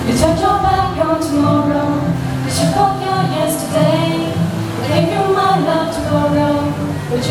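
Girls singing a pop song in sustained phrases over a backing track.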